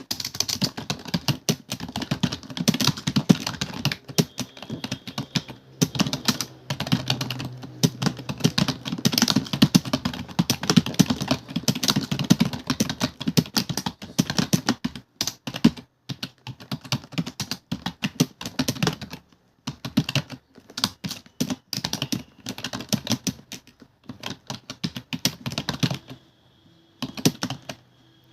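Fast, continuous typing on a computer keyboard: a rapid stream of key clicks with short breaks, and a pause of under two seconds near the end.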